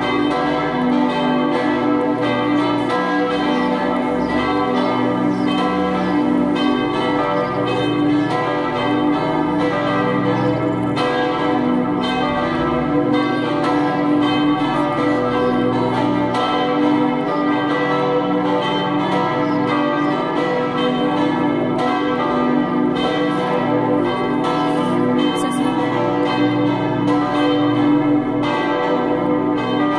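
Four swinging church bells ringing together in full peal: two cast in 1804, tuned G and E, and two cast in 1855, tuned D and B. Their strokes overlap in dense, unbroken ringing.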